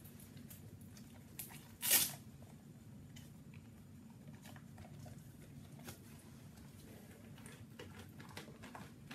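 Faint rustling and scuffing of fabric as someone moves about close to the microphone, over a low steady room hum, with one louder, brief brushing sound about two seconds in.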